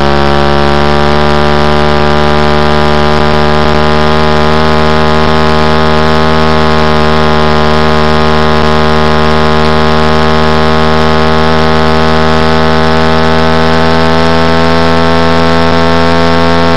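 Middleweight supersport race bike's engine held wide open at high revs on the banking, one steady loud note whose pitch creeps slowly upward as the bike gains speed.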